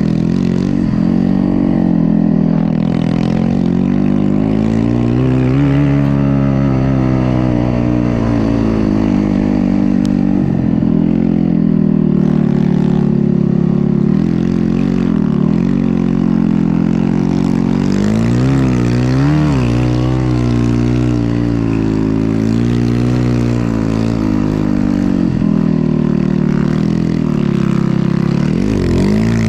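Snow bike engine (a dirt bike fitted with a snow-track conversion) running hard under load, its pitch rising and falling over and over as the throttle is worked.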